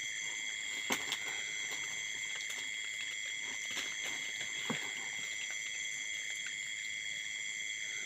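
Night insects trilling steadily, a constant high-pitched chorus. A few faint knocks about a second in and near the five-second mark.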